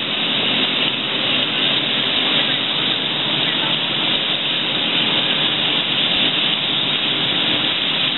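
Steady rushing noise of a fast-moving open tour boat: wind and water over the deck, with the engines' steady hum underneath.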